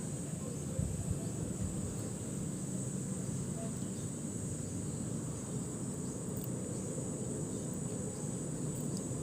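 Strong monsoon wind from a tropical depression blowing steadily, a low rumbling rush with slight gusts, over a steady high-pitched chirring drone.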